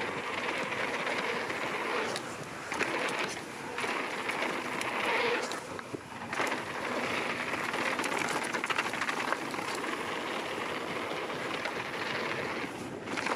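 Mountain bike rolling fast down a hard-packed dirt jump trail: steady tyre noise on the dirt with the bike clicking and rattling over bumps. The noise drops away briefly a few times.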